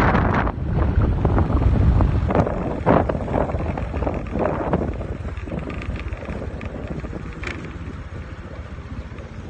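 Wind buffeting a phone microphone on a moving motorbike: a heavy low rumble with gusty crackles, loudest in the first few seconds and easing off over the second half.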